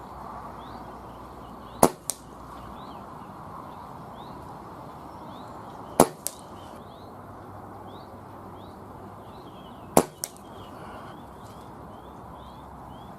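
Falcon Prairie Hunter PCP air rifle firing .177 JSB Hades pellets three times, about four seconds apart. Each shot is a sharp crack followed about a third of a second later by a fainter smack, the pellet hitting the target. A steady background hiss runs underneath, with faint bird chirps.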